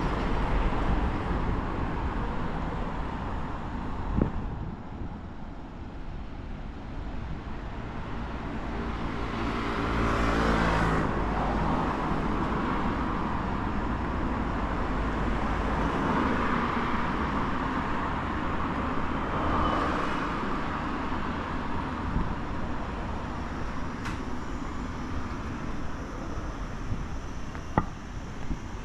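Traffic noise from vehicles passing by, the loudest pass about ten seconds in, with a couple of short sharp knocks.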